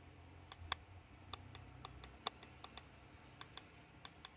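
Faint light clicks, about a dozen at irregular intervals, from fingers working the control-panel buttons of a direct drive sewing machine, over a low steady hum.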